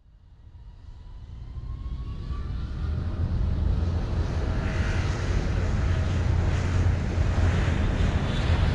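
Sound-effect rumble for a warp or portal transition, fading in out of silence over about three seconds with faint rising whistles, then holding loud and steady over a deep hum, like a jet engine.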